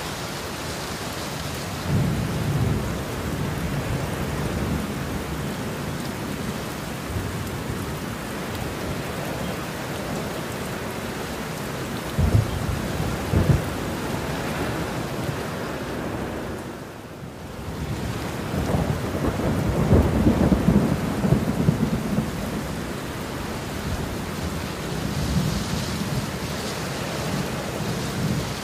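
Heavy rain falling steadily, with thunder rolling through it: low rumbles, two sharp claps a little before the middle, and a long rolling rumble after the rain briefly dips about two-thirds of the way through.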